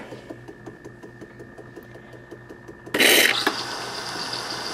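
One-touch espresso machine working through a cafe latte cycle: a soft, even ticking of about seven or eight strokes a second, then, about three seconds in, a sudden loud hiss that settles into a steady rushing noise.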